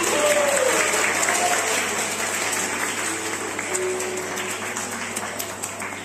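Audience applauding after a song, the clapping slowly dying away.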